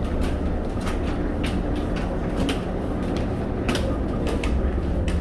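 Steady low hum of the Freshwater class ferry's engines running at the wharf, with light footsteps on the deck about twice a second.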